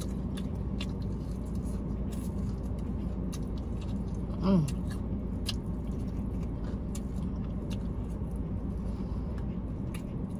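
Close-up chewing and sharp mouth clicks of someone eating fried chicken wings, with one brief vocal 'mm' about halfway through, over a steady low hum in the car cabin.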